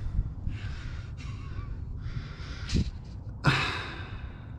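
A man breathing heavily and sighing close to the microphone, with a sharp exhale about three and a half seconds in.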